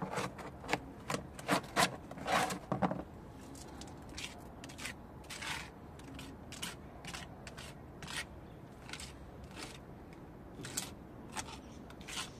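A brush scraping wet plaster onto a rough concrete-block wall in short, irregular strokes. The scraping is louder and busier for about the first three seconds, as the mortar is scooped from a plastic bowl, then settles into quieter separate strokes.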